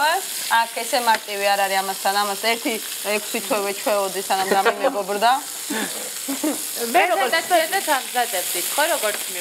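Meat patties frying in a pan, with a steady sizzle, under people's voices.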